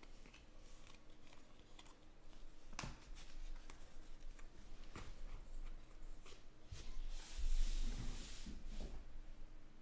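2020 Panini Mosaic football trading cards handled in the hands: a run of small slides, flicks and taps as the stack is sorted and squared, then a louder rustle with a low thump about three-quarters of the way through as the cards are set down on the table.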